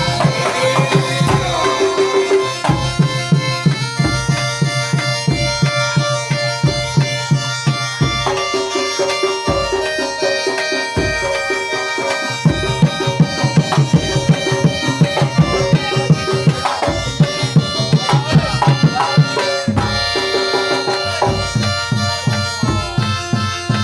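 Music with a steady, fast hand-drum beat under long, held melody notes.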